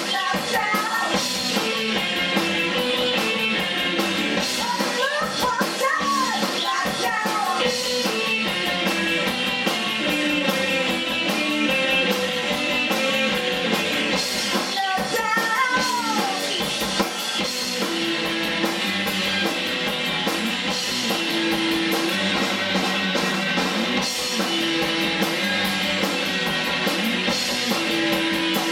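Indie rock band playing live: distorted electric guitars, bass guitar and a drum kit, driving on steadily.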